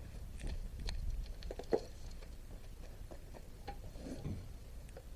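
Scattered light clicks and taps of hand tools and metal parts being handled, with one sharper knock about 1.7 s in.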